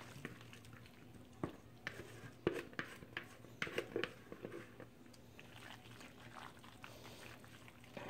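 Spatula scraping a creamy shredded chicken, bacon and ranch mixture out of a mixing bowl into a casserole dish and spreading it: quiet wet squishes with scattered light clicks of the spatula against bowl and dish.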